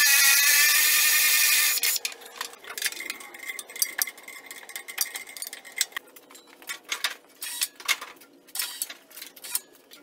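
Handheld power tool whining steadily for about two seconds as it runs out a lower hood bolt, then scattered light metallic clinks and knocks as parts are handled.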